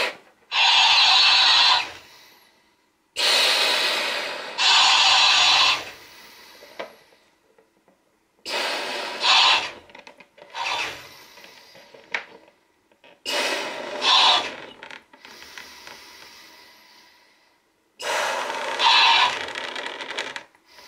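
Hard breaths blown into a latex balloon as it inflates, each followed by a talking hamster toy's pitched-up playback of the same rush of air through its small speaker, in pairs about every four to five seconds.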